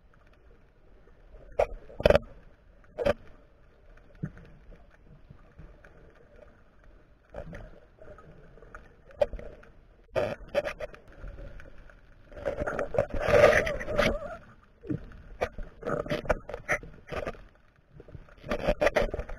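Underwater sound picked up by a camera in a waterproof housing: scattered knocks and clicks, with a longer rush of noise about two-thirds of the way in.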